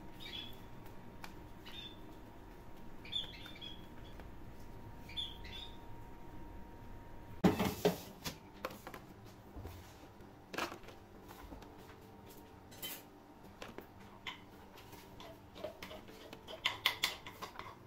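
Crisp fried bitter gourd slices clattering and scraping against a plastic tray and a plastic storage box as they are moved by a wooden spatula and by hand. There is one loud clatter about seven and a half seconds in and a quick run of clicks near the end.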